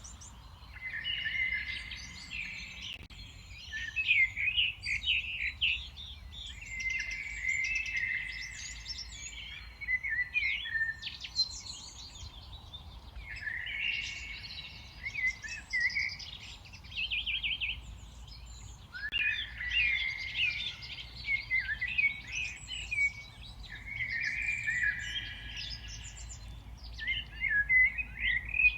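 Songbirds singing: chirping, warbling song phrases, each a second or two long, come every few seconds, one with a fast trill, over a faint low background rumble.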